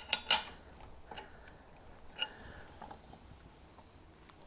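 A few light metallic clicks and taps of steel hardware (nut, washers, bolt) being handled and tightened. The sharpest click comes just after the start, with smaller ones about a second and about two seconds in.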